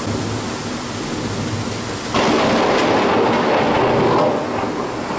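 Heavy rain with thunder rumbling; about two seconds in a louder rumble sets in abruptly, holds for about two seconds, then eases back.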